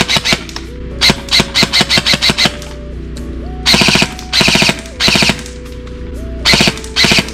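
EMG Sharps Bros "Jack" Takedown M4 airsoft electric rifle (AEG) firing: quick single shots at about five a second, then from about halfway several short full-auto bursts, over background music.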